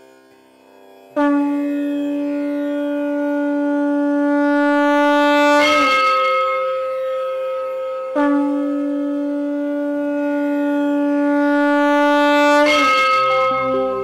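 Conch shell (shankha) blown in two long blasts. Each blast holds one low note for about four and a half seconds, then breaks upward to a higher note at its end.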